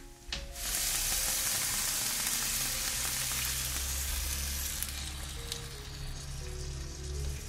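Beaten eggs poured into hot oil in a frying pan of broccoli, setting off a loud sizzle that starts suddenly about half a second in and eases off after a few seconds.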